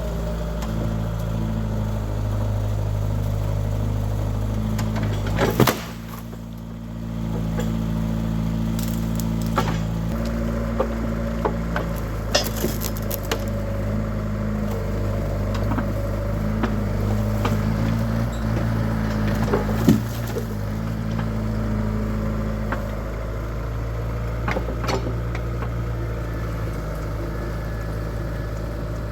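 Mini excavator engine running steadily under hydraulic load while the excavator works a log with its manual thumb. Scattered sharp knocks and clanks come from the thumb and bucket handling the log, the loudest about 20 s in.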